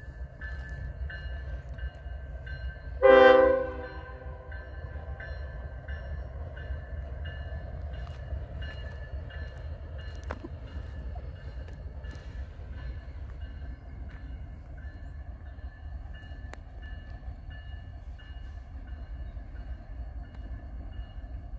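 One short, loud train horn blast about three seconds in, over a steady low rumble from the train. A faint bell rings about twice a second throughout.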